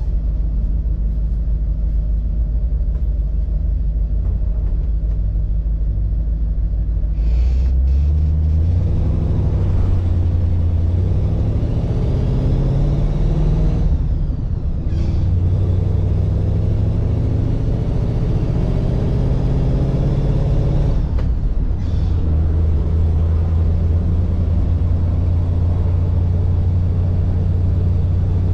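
1948 Mercury's 239-cubic-inch flathead V8 running low and steady, then pulling harder from about seven seconds in. Its note climbs and drops back twice as the three-speed gearbox is shifted up, around halfway and again about three-quarters through, and then it settles into a steady cruise.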